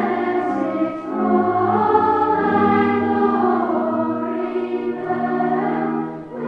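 A choir singing in held notes, with a short break between phrases about a second in and again near the end.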